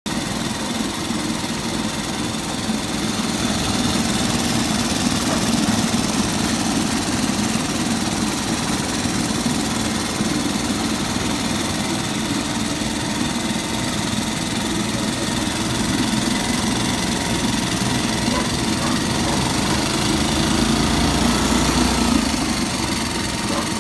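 Honda BF2 2 hp single-cylinder four-stroke outboard running steadily in a test bin of water, its propeller churning the water; it gets a little louder around twenty seconds in.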